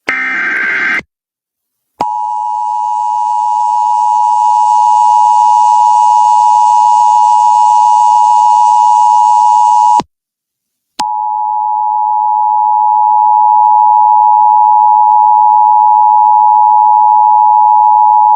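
The last burst of EAS SAME header data, a rapid warbling digital tone lasting about a second. Then, after a short silence, the Emergency Alert System two-tone attention signal: a steady pair of close pitches held for about eight seconds, a one-second break, and the same tones again for another seven seconds or so. Each stretch of tone swells in loudness over its first few seconds.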